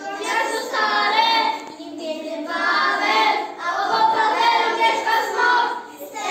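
A group of young children singing together in unison, in several phrases with short breaks between them.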